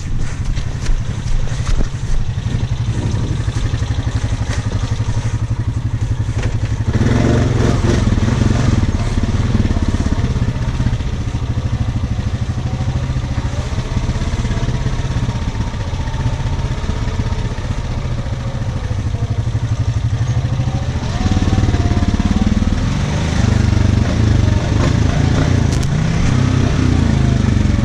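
ATV engine running under a rider, its pitch wavering as the throttle changes. It picks up and gets louder about a quarter of the way in, and again near the end.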